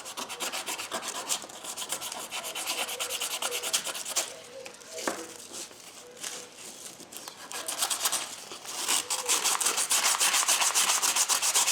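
A metal hand-plane part is rubbed back and forth on sandpaper over a flat surface in quick, even strokes to clean and flatten it. The strokes ease off in the middle and pick up again, louder, about eight seconds in.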